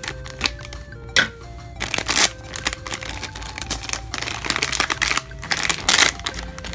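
Scissors snipping across the top of a foil blind bag about a second in. Then the foil-lined bag crinkles and rustles in bursts as it is pulled and torn open by hand, over background music.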